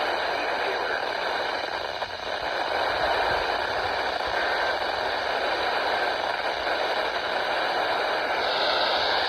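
Radio static: a steady hiss from a weak weather-radio signal, with no voice getting through.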